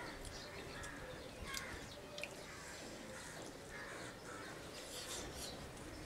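Crows cawing over and over, the calls often coming in pairs, with a few sharp clicks in between.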